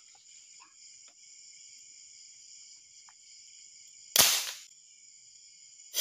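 A single sharp shot from a homemade marble gun about four seconds in, over night insects chirping steadily.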